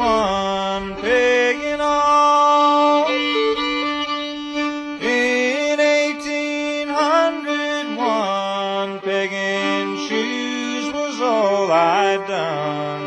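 Old-time fiddle playing an instrumental break, sliding into notes over a steady drone string, with string-band backing.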